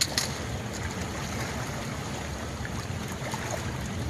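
Steady rush of water pouring over a spillway, with two short sharp clicks right at the start.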